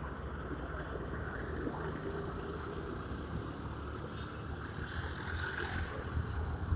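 Honda Scoopy scooter riding through city traffic: a steady low engine and road rumble with wind noise on the microphone.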